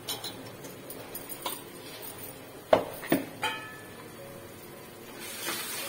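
Steel utensils knocking against an aluminium cooking pot a few times, the loudest clank about two and a half seconds in, followed by a short ringing tone. Near the end the masala of tomatoes and spices starts to sizzle in the pot.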